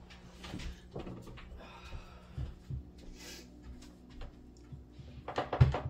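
Light knocks and handling sounds at a dinner table, with a brief hiss about two seconds in and a louder thump near the end.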